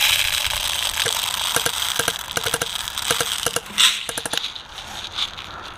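Airsoft guns firing: a dozen or so sharp, irregular snaps over a steady rushing hiss, the loudest a little under 4 s in.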